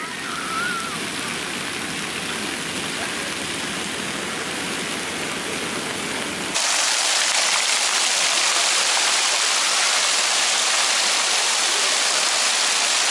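Arcing jets of a walk-through splash fountain falling onto paving: a steady rush of splashing water. About six and a half seconds in, the sound steps up at a cut to a louder, hissier splashing.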